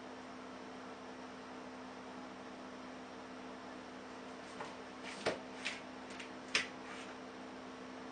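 A steady electrical hum, with a handful of short, sharp clicks and taps about five to seven seconds in: a kitten's claws and paws tapping on the hard bathtub.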